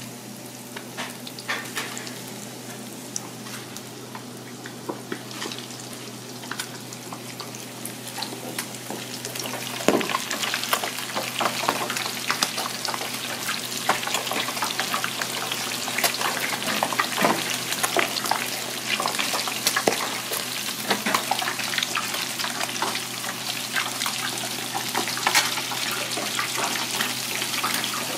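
Battered shirako (cod milt) deep-frying in a fryer full of hot oil: a dense crackling sizzle that grows clearly louder about ten seconds in as more pieces go into the oil, over a steady low hum.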